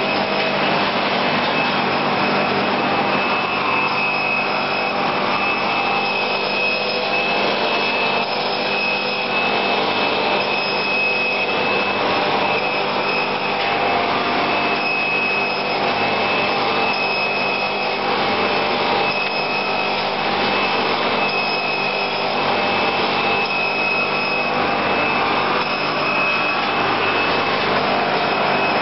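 Wohlenberg City 4000 perfect binder running: a steady mechanical grinding and whirring with a constant high whine, swelling slightly about every two seconds as the machine cycles.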